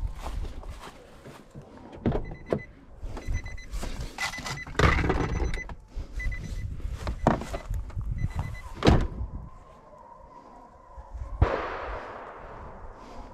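Nissan Titan pickup's door open, its door chime beeping in runs over knocks and clicks of handling in the cab, then one loud thunk near the end as the door is shut.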